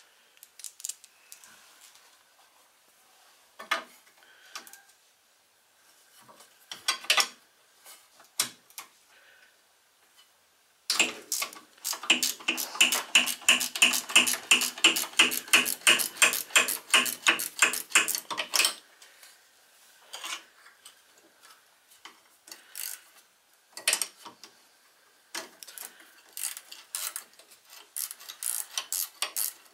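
Half-inch ratcheting wrench clicking rapidly as bolts holding the belt guard are backed out: a few scattered metal clinks at first, then a long run of even clicks, about four or five a second, through the middle, and more ratcheting near the end.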